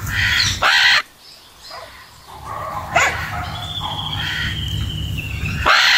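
Animal calls: two loud, harsh calls in the first second, then softer scattered calls and a thin whistle-like tone that slowly falls, over a steady low hum.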